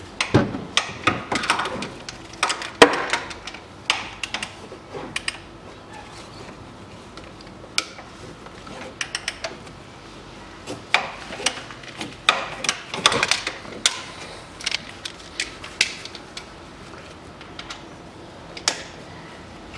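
Socket ratchet wrench clicking in several bursts of rapid clicks, with metal tool knocks, as a bolt on the engine front is worked loose, plausibly the timing-belt tensioner pulley bolt.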